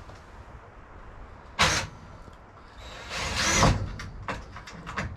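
Cordless drill driving a screw: a short burst, then a longer run about three seconds in whose whine rises and falls in pitch.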